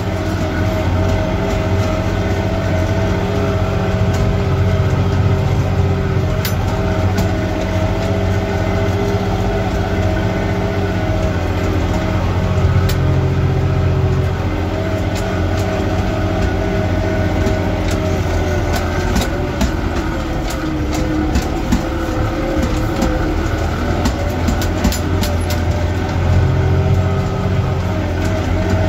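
New Holland 6556S tractor's diesel engine running steadily under load while it tows a tine harrow across the field, heard from inside the cab. Scattered light clicks and rattles come more often in the second half.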